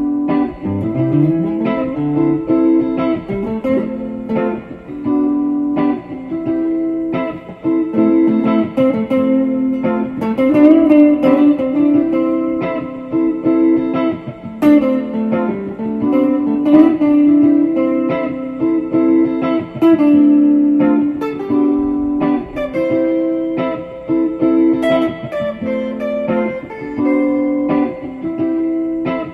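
Background music: a guitar playing picked notes and chords.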